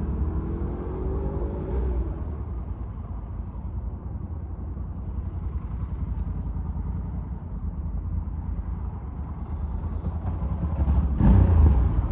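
Honda Africa Twin motorcycle on the move: a steady low engine and wind rumble. The engine pitch rises and then drops in the first two seconds, and the rumble suddenly grows louder about eleven seconds in.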